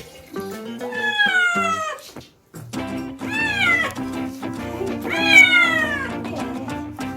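Kitten yowling in distress during its first bath: three long, drawn-out meows, the first falling in pitch and the next two rising then falling. Background music plays underneath.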